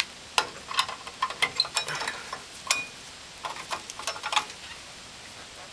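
Irregular metallic clicks and clinks, about a dozen sharp taps with one short ringing ping about halfway through. They come from pliers working the parking-brake shoe hardware (the small drum-in-hat brake and its clips) on a pickup's rear disc brake.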